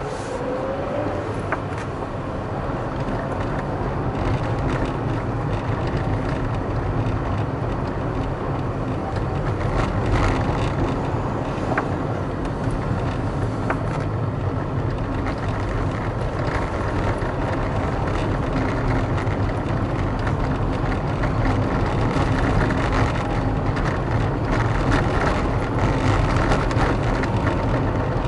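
A moving car's road and engine noise: a steady rumble of engine and tyres with a faint constant hum, growing a little louder over the first few seconds, then holding.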